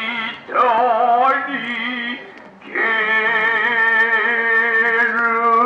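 A male kyōgen actor's voice chanting in the drawn-out stylized delivery of kyōgen: a short wavering phrase, a brief break about two and a half seconds in, then one long held note with a slight waver.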